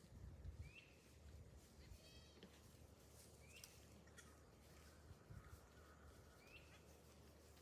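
Faint goat bleating, heard softly, with a few short high chirps and some soft low thumps.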